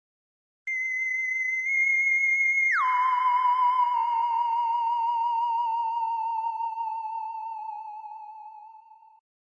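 A high, steady electronic tone, like a theremin, that drops suddenly by an octave about two seconds in, then wavers with vibrato and slowly fades away.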